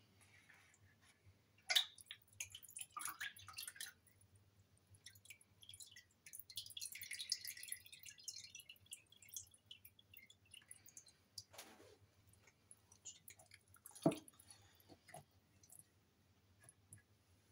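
Raw turkey fillet lifted out of a bowl of brine and held over it, brine dripping and trickling back into the bowl, with wet squelching as the meat is handled. A few sharp knocks of the bowl and dish on the countertop, the loudest near the end.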